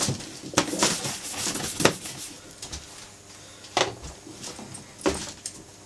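Horsehair brush swept over a leather briefcase in a few short strokes, with soft knocks as the case is turned and set down on a table.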